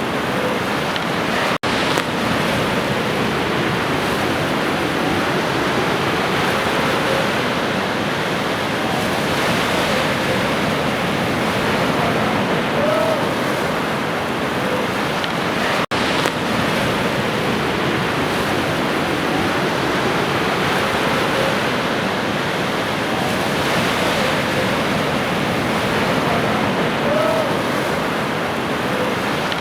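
Ocean surf washing continuously in slow, gentle swells. The sound cuts out for an instant twice.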